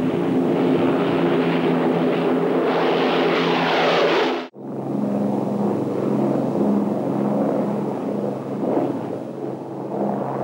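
Avro Lancaster's Rolls-Royce Merlin piston engines droning steadily in flight. The sound breaks off abruptly about four and a half seconds in and resumes at a lower pitch.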